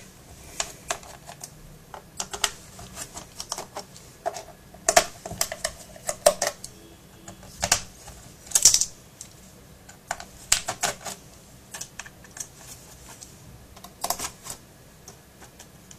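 Irregular sharp clicks and taps of fingers and a small screwdriver on the plastic underside of a Dell Studio laptop, as the screws of its bottom access panel are taken out.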